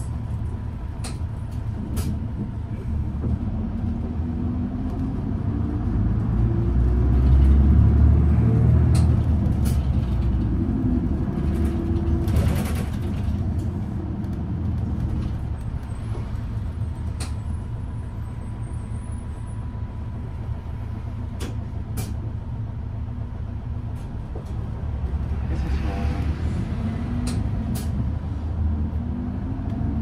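City bus engine heard from inside the cabin while driving, growing louder and rising in pitch as the bus pulls away, then settling back. There is a short hiss about twelve seconds in, and scattered light clicks and rattles from the cabin.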